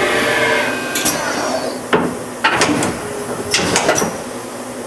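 Automatic tool changer of a Daewoo DMV-500 vertical machining center cycling: a motor whine falls in pitch about a second in, followed by a series of sharp metallic clacks and knocks as the tool change goes through.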